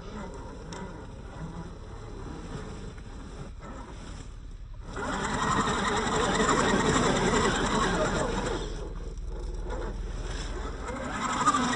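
Small electric motors and gear drivetrains of RC 4x4 crawler trucks whirring as they drive, louder from about five seconds in, with a short lull before they pick up again near the end.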